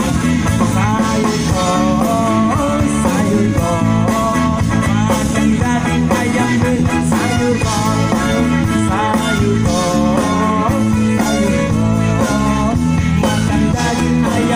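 Live band playing loud amplified music: an instrumental passage with a bending melody line over a steady bass.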